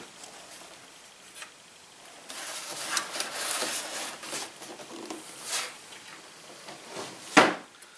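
A cardboard toy box being handled: its packaging rubs and scrapes for a couple of seconds, then a single sharp knock near the end as it is put down.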